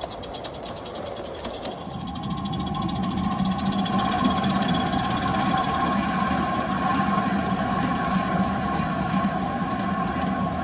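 Large-scale (G scale) model freight cars rolling along the track, a steady rumble with a humming tone that grows louder about two seconds in as the train passes close.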